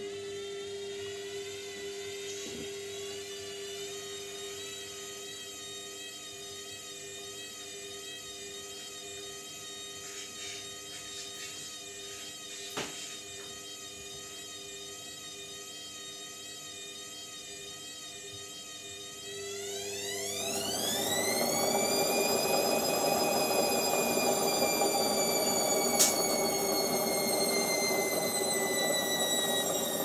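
Indesit front-loading washing machine running with a steady motor whine as the drum turns. About two-thirds of the way in, the whine climbs steeply in pitch and the machine gets louder with a rushing noise as the drum speeds up into a spin, then the pitch eases down slightly; a single click near the middle and another near the end.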